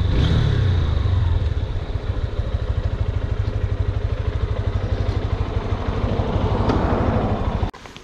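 Honda CB200X's single-cylinder engine easing off, then running at low revs with a rapid, even putter while the bike rolls slowly. It cuts off suddenly near the end.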